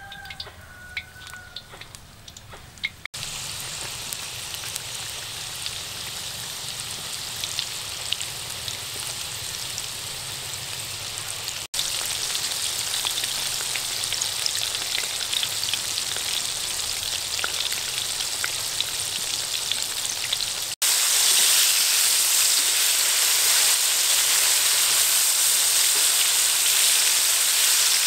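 Wontons deep-frying in a wok of hot oil: a dense, steady sizzle and crackle. It starts quieter with scattered pops, then steps up sharply louder three times.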